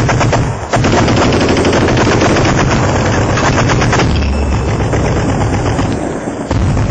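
Sustained automatic gunfire: rapid shots in long bursts, with a brief break about half a second in and another shortly before the end.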